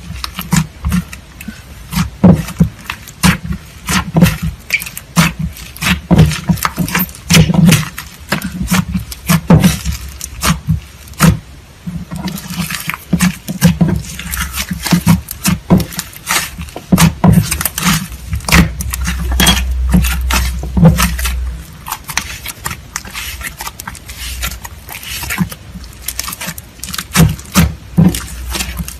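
Slime being squeezed, poked and stretched by hand, giving a dense, irregular run of sharp wet clicks and pops.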